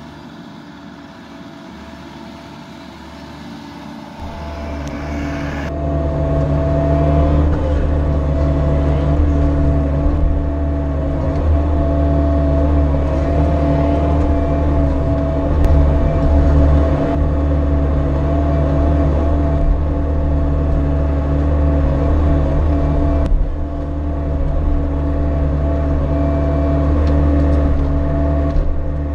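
Bobcat E42 mini excavator's diesel engine running steadily while the machine digs with its bucket. It is fainter for the first few seconds, then much louder and closer, heard from the cab, from about four seconds in.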